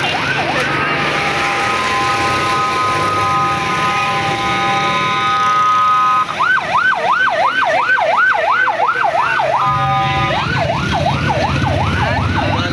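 Electronic siren over a motor rickshaw's running engine: a steady multi-note tone for about six seconds, then a fast warble rising and falling about three times a second, a brief return to the steady tone near ten seconds in, then the warble again.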